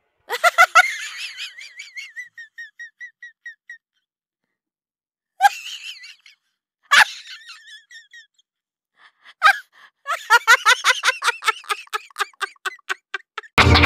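Laughter in several bursts of quick, pulsing ha-ha-ha, with dead silence between them. The longest run comes near the end.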